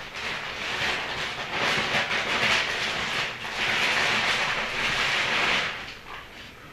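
Ferret digging and scrabbling through loose soil in a plastic tub: a rough scratching rustle that swells in two long bouts and dies down near the end.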